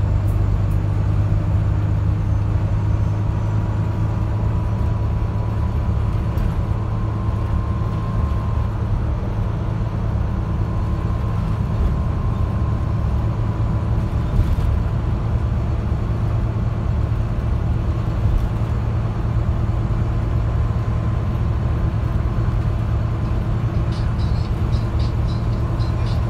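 Cabin noise of a Volvo B9TL double-decker bus underway, heard from inside the upper deck: a steady low drone from its six-cylinder diesel engine, with road noise. A short run of faint, quick high ticks comes near the end.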